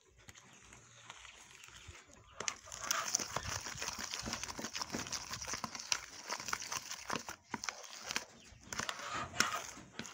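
Wooden spoon scraping and knocking against a plastic bowl while beating margarine and sugar into a creamy paste. Quieter at first, then a quick, continuous run of scrapes from about two seconds in.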